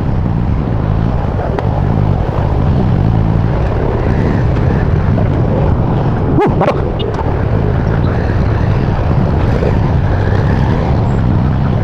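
Motorcycle engine running steadily while the bike threads through a traffic jam, with a sharp click about six and a half seconds in.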